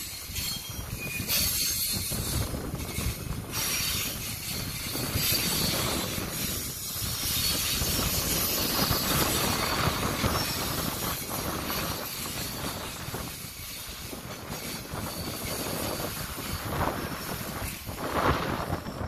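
Loaded container freight wagons rolling steadily past: a continuous rumble of steel wheels on the rails with a high hiss that swells and eases as the wagons go by.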